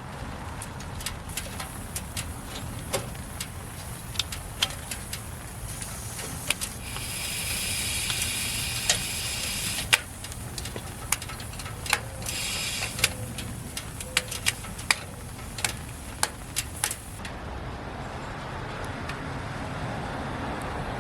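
Wood fire crackling: irregular sharp pops and snaps over a steady hiss, with a brighter hiss swelling for a few seconds in the middle.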